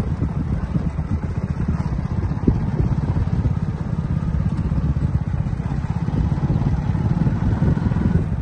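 A motorcycle engine running steadily at low speed, a low, evenly pulsing rumble.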